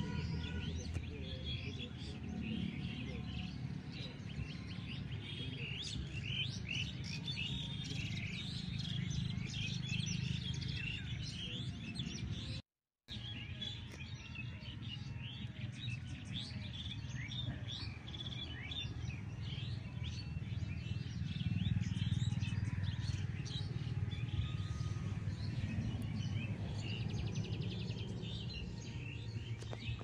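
Several birds chirping and calling in a busy chorus of short quick notes, over a low steady rumble of background noise. The sound cuts out completely for a moment a little before halfway.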